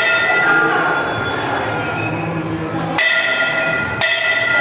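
Temple bell struck three times, each clang ringing on with several steady tones: once right at the start, then again about three and four seconds in.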